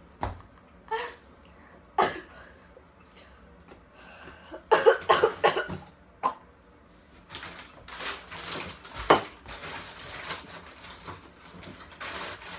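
A girl with a cold coughing: a few short coughs, the loudest and longest bout about five seconds in, followed by a longer stretch of indistinct shuffling noise.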